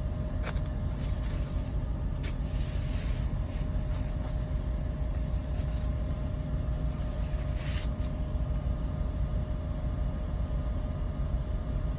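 Steady low rumble of a running vehicle engine with a constant hum, heard from inside the vehicle, with two brief hisses about three and eight seconds in.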